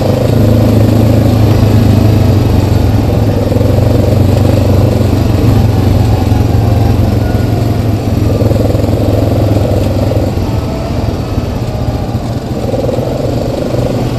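Single-cylinder ATV engine running steadily as the quad rides along a dirt trail, heard from the rider's seat. The engine eases slightly after about ten seconds.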